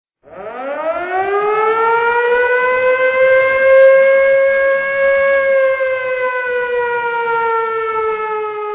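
A siren wail that winds up in pitch over the first two seconds, holds one steady tone, and sags slightly near the end.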